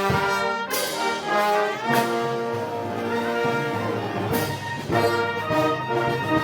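Brass band playing festival march music: trumpets and trombones hold chords that change every second or so over a few sharp percussion strikes.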